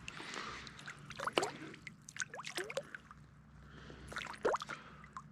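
Close splashing and dripping water, with three louder splashes about a second in, midway and near the end, over the trickle of a small stream: a just-caught brook trout being handled in the shallows.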